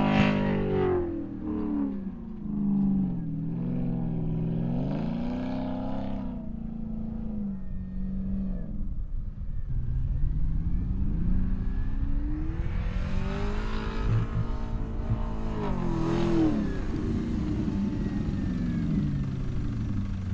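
Porsche Cayenne 955 S's 4.5-litre V8 working hard in soft dune sand, its revs climbing and dropping several times as the throttle is worked on a steep climb.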